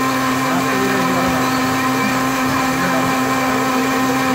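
Countertop electric blender running steadily, its motor whining at an even pitch as it blends orange juice.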